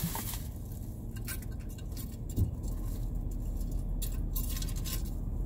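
Small pieces of jewelry clinking and rattling as they are picked through by hand, a few light clicks and a soft knock about two and a half seconds in, over a steady low hum inside a car.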